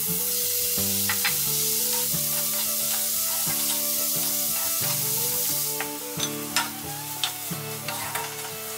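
Shrimp and other seafood sizzling in hot oil in a wok, stir-fried with a wooden spatula. The sizzle is loud for about the first six seconds, then eases, and the spatula clicks and scrapes against the wok several times near the end.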